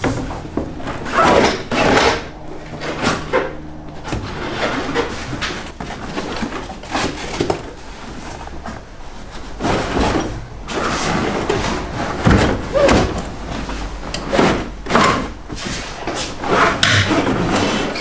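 Moulded car carpet with its felt underlay being pulled and dragged out of a BMW E30's front footwell: irregular scraping, rustling and dull knocks as it is forced loose from a tight fit behind the heater box.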